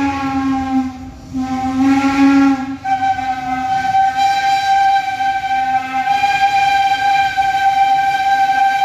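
Chime steam whistle of Baldwin 2-8-0 steam locomotive No. 68 blown in long blasts as it approaches a level crossing. It sounds a steady chord, breaks off briefly about a second in, sounds again, then from about three seconds on holds a long, slightly different chord.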